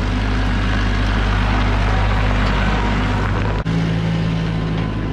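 New Holland tractor's diesel engine running steadily as the tractor drives past. About three and a half seconds in the sound drops out for an instant and comes back with a different engine tone.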